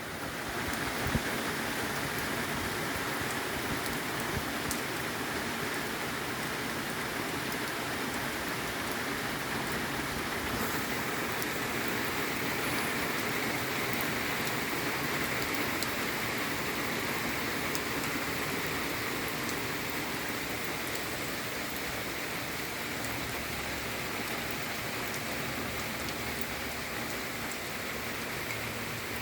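Steady rain falling, an even hiss of many drops, with one small knock about a second in.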